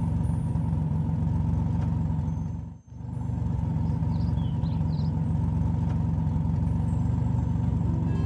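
Cartoon toy truck's engine sound effect running steadily as the truck drives along. It drops away for a moment about three seconds in, then picks up again.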